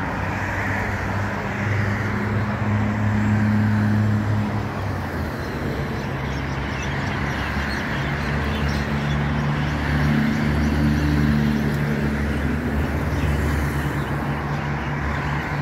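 City street traffic: cars running along a wide road close by, a steady wash of engine and tyre noise with a low engine hum that shifts every few seconds as vehicles pass.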